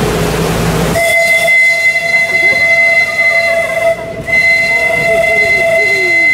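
A steamboat-style whistle sounding in long steady blasts, two pitches together, with a short break in the middle; rushing engine and water noise comes before it.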